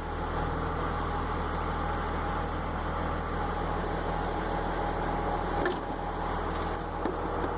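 A steady mechanical hum, even in level, with a few light clicks near the end.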